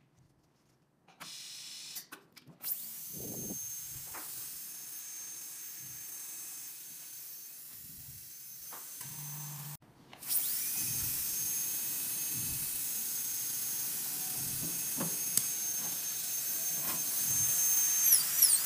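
High-speed air-turbine dental handpiece spinning: a steady high whine over hissing air. It stops about halfway, spins up again with a rising whine, and near the end the pitch dips several times as the bur is pressed against a surface.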